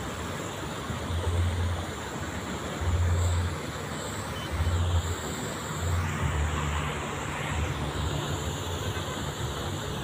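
Steady rush of water spilling over a small river weir, with low rumbles that swell and fade every second or two.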